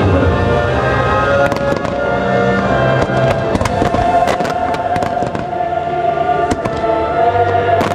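Fireworks launching and bursting in a rapid run of sharp cracks and pops, starting about a second and a half in, over loud show music with sustained notes.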